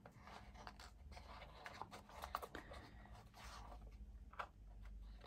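Faint handling sounds of a metal brad being pushed through mat board pieces and fastened: light scratching and scattered small clicks.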